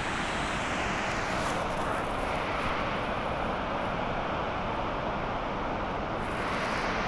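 Steady rush of a mountain river's white-water rapids pouring over boulders, an even noise that holds without a break.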